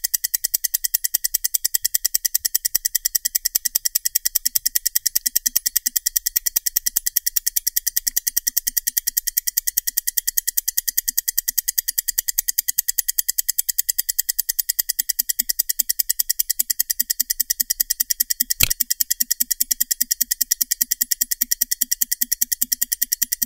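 Mechanical stopwatch ticking: rapid, perfectly even ticks, several a second, with one louder click about eighteen seconds in.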